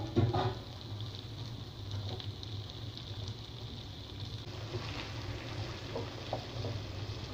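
Chopped vegetables frying in hot oil in a non-stick wok, a steady low sizzle with a spatula stirring and scraping now and then, over a low steady hum.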